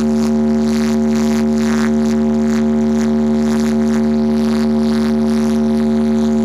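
A DJ sound system's speaker stack of 10 bass and 12 mid boxes under test, playing a loud held droning note. The note stays at one pitch throughout, with a faint beat over it about twice a second.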